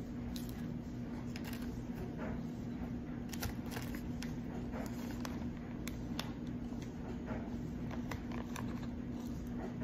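Scissors snipping and being handled, giving short, irregular clicks a second or so apart, over a steady low hum.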